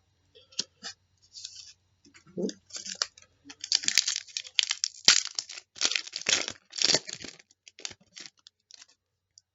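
Trading card pack wrapper being torn open and crinkled by hand, in irregular crackly bursts that are loudest in the middle.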